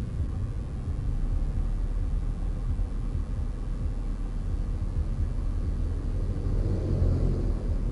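Steady low rumble of a vehicle driving along a road, engine and tyre noise with no sudden events.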